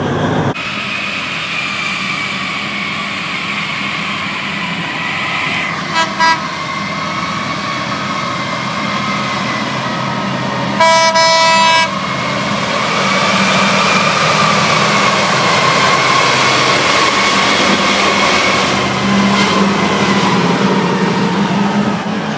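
Heavy mining machinery running with a steady drone and a whine that slowly rises and falls. A truck horn gives two short toots about six seconds in and one long blast of about a second near the middle.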